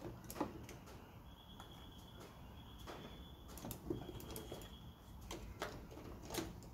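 Faint, scattered small clicks and taps of handling on a workbench, with a faint high steady tone sounding twice in the middle.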